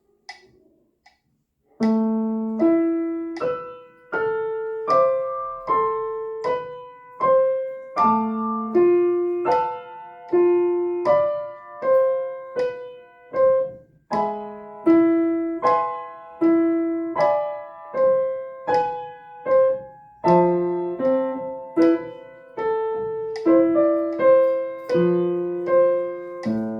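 Piano played slowly with both hands together, a passage in A minor. After about two seconds of silence the notes and chords come evenly, about one every three-quarters of a second.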